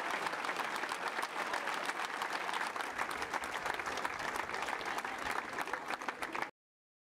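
Large audience applauding: dense, continuous clapping that cuts off abruptly about six and a half seconds in.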